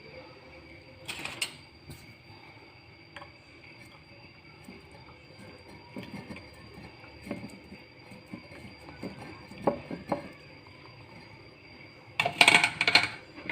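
Kitchen pots, glasses and utensils being handled: scattered light clinks and knocks, with a busier clatter of several quick knocks near the end.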